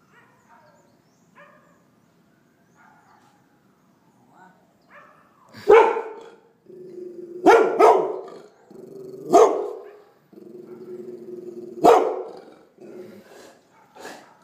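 Golden retriever barking: about five loud barks beginning some five seconds in, with long, steady lower vocal sounds between them. The first few seconds hold only faint sounds.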